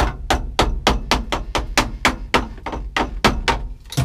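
Rapid light taps on a flat-blade screwdriver set in the grooves of a 1967–72 Chevy C10 ignition switch retaining ring, knocking the stuck ring counterclockwise to loosen it; about four evenly spaced taps a second.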